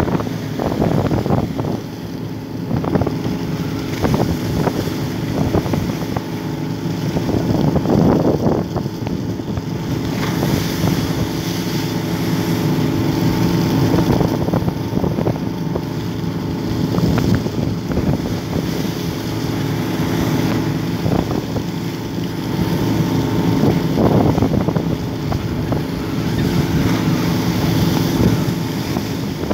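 A work boat's engine drones steadily under the rush and splash of sea water along the hull as the boat pushes through choppy waves, swelling and easing every few seconds.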